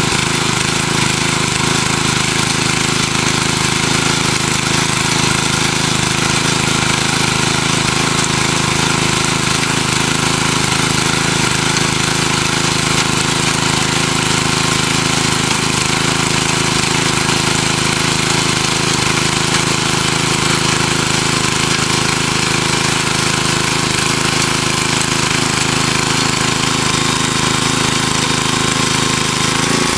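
Small gas engine of a Craftsman front-tine rototiller running steadily while its tines churn through garden soil.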